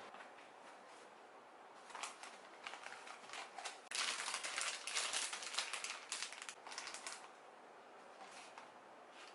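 A rapid run of clicks and rustles from objects being handled, building up about two seconds in, densest for about three seconds, then dying away.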